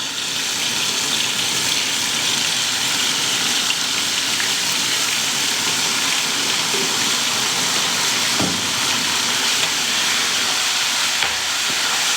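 Doubanjiang (Sichuan chili bean paste) frying in hot oil with a steady sizzle, the paste cooking until its aroma comes up.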